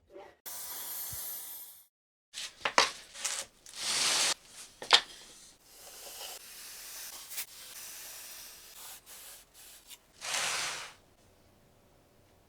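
Several short bursts of hissing, rubbing noise, each under a second, with a few sharp clicks between them.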